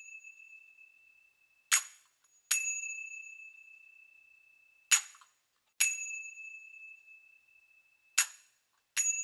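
Small Koodiyattam hand cymbals (kuzhithalam) keeping a slow beat: pairs of strokes about every three seconds, each a short damped clink followed by an open stroke that rings on as a clear high tone and slowly fades.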